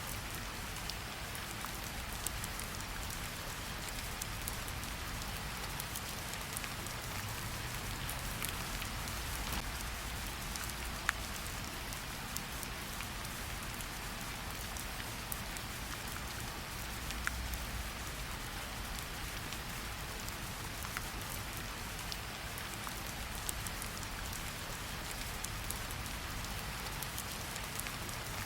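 Steady rain falling, mixed with a wood fire crackling in scattered sharp pops; two pops stand out, about 11 and 17 seconds in.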